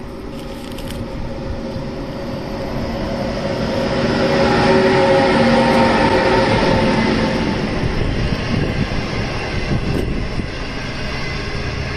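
An HXD3C electric locomotive passes close by hauling a train of green 25G passenger coaches. The sound builds to its loudest with a droning hum as the locomotive goes past about five seconds in, then settles into the steady rumble of the coaches rolling on the rails.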